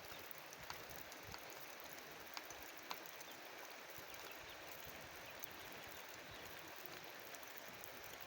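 Steady rain: an even hiss of falling rain with scattered sharper drops ticking through it.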